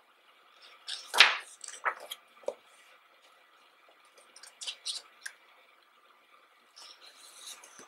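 Pages of a photobook being turned by hand: one loud paper swish about a second in, then softer paper rustles and small ticks as the book is handled.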